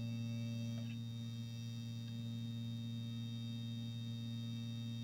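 Home-made hot air gun running steadily with a low electrical hum, blowing hot air onto the microcontroller to melt its solder; a faint tick about a second in.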